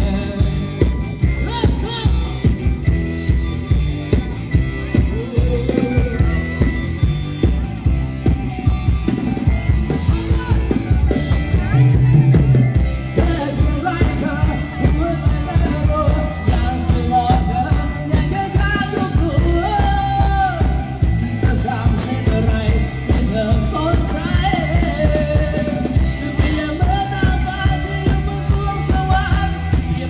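Amplified live band playing Thai ramwong dance music with a steady drum beat, and a singer's voice over it, clearest in the second half.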